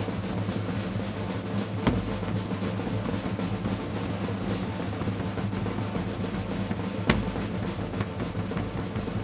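Pipe band playing: bagpipes holding steady drones over a continuous snare drum roll and bass drum. Two sharp knocks stand out above the band, about two seconds in and again about seven seconds in.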